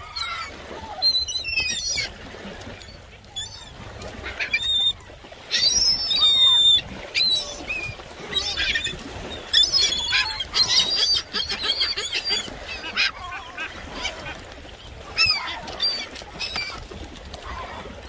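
A flock of gulls calling, many short, high, overlapping cries that come thickest in the middle, with wings flapping close by.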